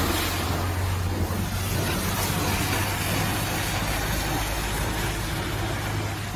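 Steady street noise with a vehicle engine running: a constant low hum under an even hiss.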